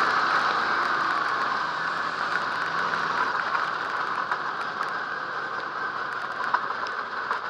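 Dirt modified race car heard on board, its engine off the throttle and winding down: the engine note falls in pitch and fades out about three seconds in, leaving a steady rush of wind and track noise that slowly grows quieter as the car coasts.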